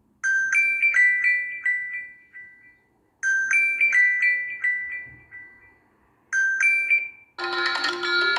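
Honor 9 Lite smartphone ringtone: a short melody of quickly fading notes plays twice with a short pause between, starts a third time and is cut off. A different, fuller ringtone begins near the end.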